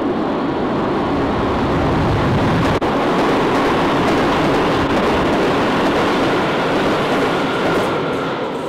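Subway train running through a tunnel: a steady rumbling, rushing noise with a faint high tone riding on it.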